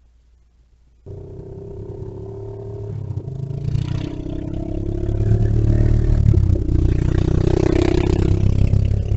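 Small off-road vehicle engine running, starting abruptly about a second in and growing louder as it comes closer, loudest in the second half.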